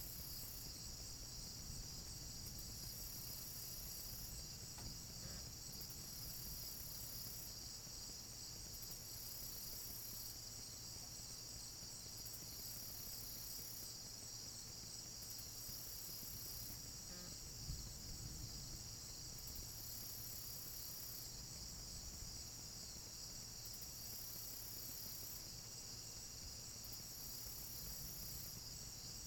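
Night insect chorus: a steady high trilling, with a higher layer that swells and fades every couple of seconds, over a faint low rumble. A single soft knock a little past halfway.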